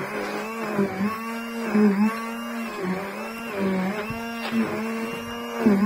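Hand-held immersion blender running in a stiff mix of flour, eggs and unmelted butter, its motor note dipping briefly about once a second as the blades meet the thick mass.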